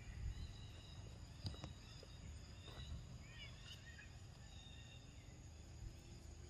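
Quiet outdoor ambience: a steady low rumble with faint high chirps. There is a light snap about a second and a half in.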